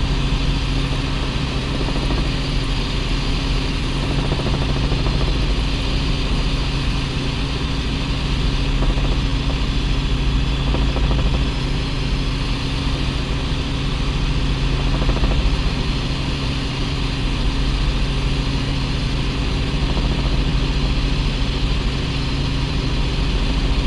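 Helicopter engine and main rotor heard from inside the cabin in cruising flight: a steady, loud low drone with an even hiss over it.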